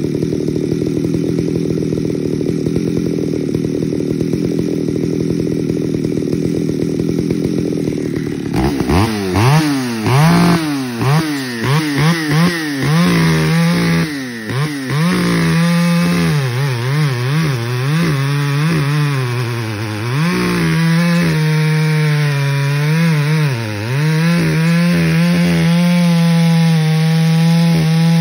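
Stock Poulan Pro 655BP 55cc two-stroke chainsaw with a 24-inch bar, idling steadily at first. About eight seconds in it is revved up and down several times, then held at high speed cutting through a log, dropping briefly in pitch twice under load.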